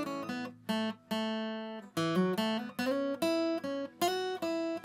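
Acoustic guitar playing single-note pentatonic licks, note by note in short phrases with brief pauses between them.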